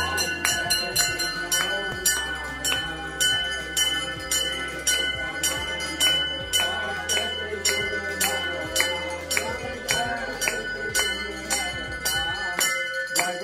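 A metal bell struck over and over in quick strokes, about three a second, each ring lingering, as in a puja bell rung during worship. Music plays underneath with a low drone that stops shortly before the end.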